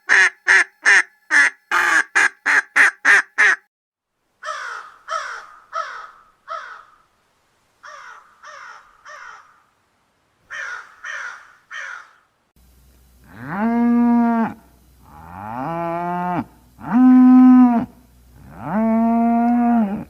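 Duck quacking in a rapid run of about four quacks a second, stopping after about three and a half seconds. Then a crow cawing in short runs of three or four caws. From about thirteen seconds in, a cow moos four times, in long, loud calls.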